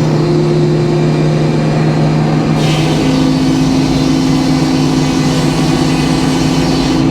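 Sawmill running under power, with a steady low machine hum. About two and a half seconds in a hiss comes in and the machine's note changes as the saw starts its cut through the white oak log.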